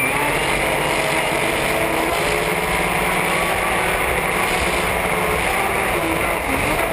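Supercharged race boat engine running at high speed, holding a steady note that dips slightly near the end, over a constant rush of spray and wind.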